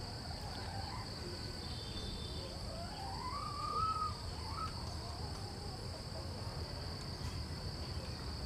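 A steady, high-pitched drone of insects, crickets or cicadas, runs throughout. A single call rises in pitch and then holds, about three seconds in.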